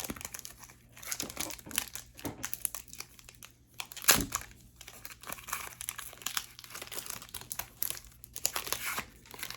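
Foil wrapper of a Pokémon card booster pack crinkling as it is handled and torn open, in irregular crackles, with one sharp loud crack about four seconds in.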